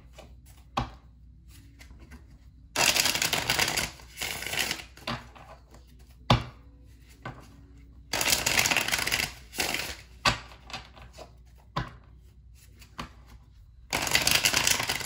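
Tarot deck being shuffled by hand in three bursts of a second or two each, with a few single sharp taps in between.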